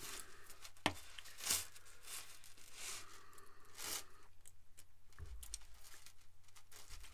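Faint rustling and crinkling of a plastic bag being handled, in a few short bursts over the first four seconds.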